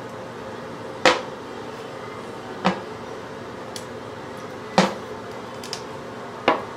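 A new toilet seat and lid clacking against the toilet bowl four times as they are shifted to line up the hinge holes, with a few faint ticks between and a steady hum underneath.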